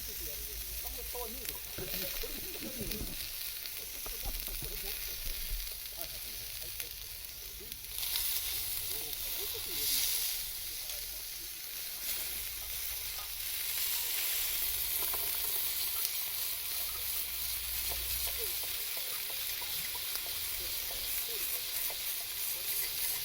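Food frying on a hot pan or griddle over a camp fire: a steady crackling sizzle that grows louder about eight seconds in.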